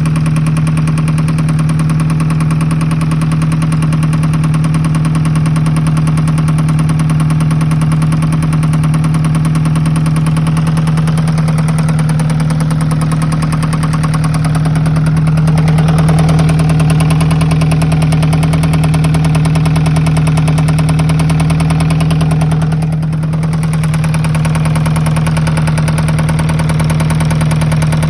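Alfa Romeo 156 1.8 Twin Spark four-cylinder engine idling with a rapid, regular knock coming from inside the engine. The revs rise slightly about halfway through, then settle back.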